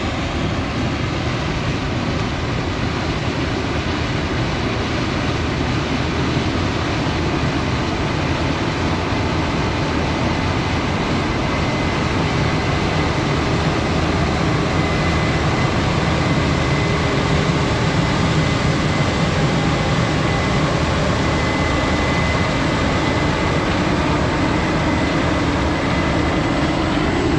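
Case IH combine harvester running steadily while picking corn: a continuous, even machine drone, heavy in the low end, with a faint steady high tone over it.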